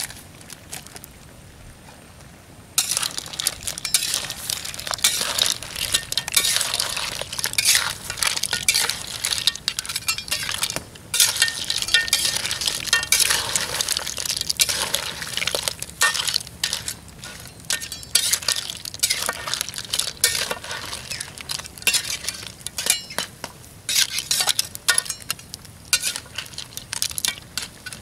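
A metal spatula stirring and scraping a pile of crabs and clams in an aluminium wok, the shells clattering and clinking against each other and the pan. It starts about three seconds in and goes on in busy, uneven bursts with short pauses.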